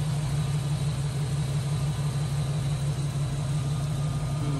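Off-road vehicle's engine idling steadily, a low, even drone with no revving.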